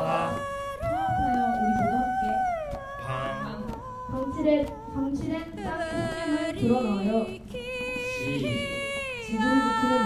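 Young people singing a melody into a microphone, with long held notes that step and slide from pitch to pitch.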